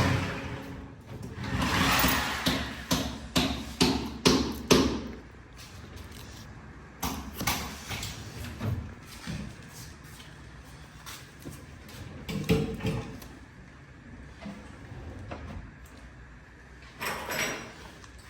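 Kitchen cabinetry being handled during installation: a quick run of sharp knocks and clacks over the first five seconds, then scattered quieter knocks and thuds.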